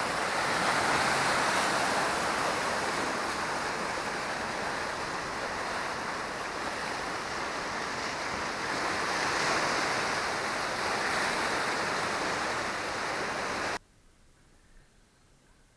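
Ocean surf breaking and washing against a rocky shore, a steady rush that swells and eases with the waves. It cuts off suddenly near the end, leaving only faint background.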